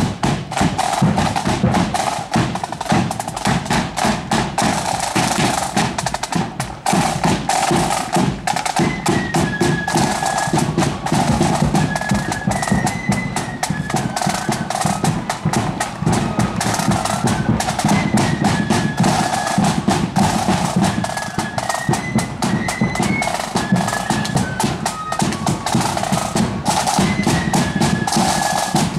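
Marching band playing as it parades: a steady beat of side drums and bass drum, with a high melody joining about eight seconds in.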